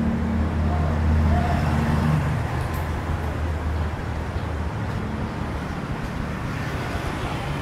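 Busy city street traffic: a nearby vehicle engine hums low and steady, fading out after about three to four seconds, over continuous road and tyre noise.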